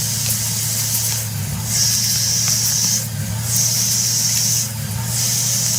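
CNC machine running, with a steady low machine hum under a hissing spray that cuts in and out in a regular rhythm about every second and a half.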